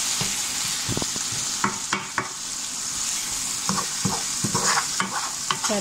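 Sofrito of onion, red pepper and tomato purée, with a pork bone, sizzling steadily in a nonstick frying pan. A wooden spoon stirs and scrapes against the pan several times, mostly in the second half.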